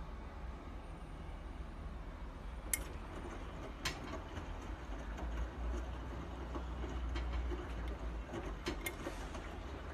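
Bosch washing machine running with a steady low rumble, a light crackle and a few sharp clicks: the weird noise the machine is making.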